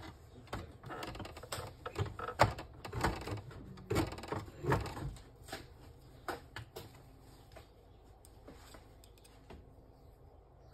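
Irregular clicks and knocks of plastic printer parts and a screwdriver being handled inside an opened Epson L3150 ink-tank printer, busiest in the first half, then only a few light ticks.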